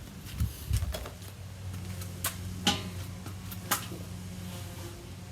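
Metal grill parts being handled during kettle charcoal grill assembly: about half a dozen short, sharp metal clicks and knocks, spaced unevenly, over a steady low hum.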